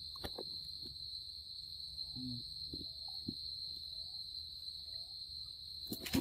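Insects droning steadily at one high pitch, with a few soft clicks and faint short calls over it and a sharper knock near the end.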